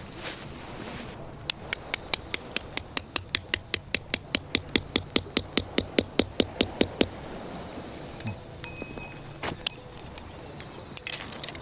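Hammer driving a tent peg into the ground: a fast, even run of sharp strikes, about five a second, for some five seconds. Then a few ringing metallic clinks.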